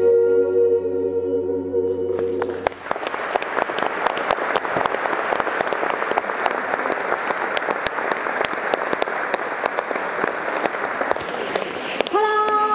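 A theatre audience applauding as the final held keyboard chord of a song dies away. The chord stops about two and a half seconds in and the clapping carries on, with voices starting near the end.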